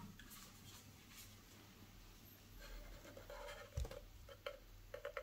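Faint handling noises as gloved hands rub and shift the plastic base of a Mi Smart LED Desk Lamp Pro, with a soft knock a little under four seconds in and a few light clicks near the end.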